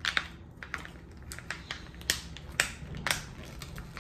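A toy blind pack being opened and handled by hand: a string of sharp, irregular crackles and clicks from the packaging.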